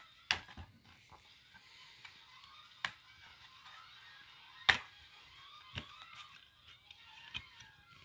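Sharp clicks and taps of a plastic DVD case being handled and opened, about five in all, the loudest a little past the middle.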